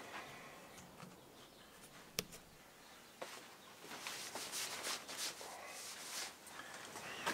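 Quiet, scattered small clicks and rustles of handling, with one sharp click about two seconds in and a run of light scraping rustles in the second half.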